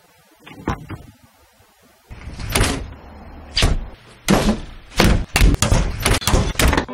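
Doors banging shut one after another, a string of sharp slams that come faster toward the end, after a couple of faint clicks at the start.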